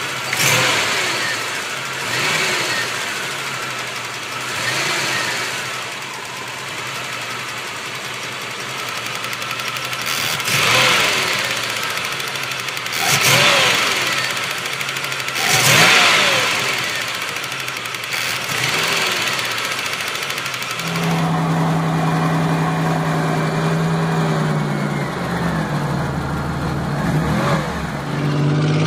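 Buick 3.3-litre (204 cu in) V6 engine revved by hand at the throttle in a series of short blips, each climbing and falling back to idle. After about 21 seconds a different engine idles steadily and is revved once briefly near the end.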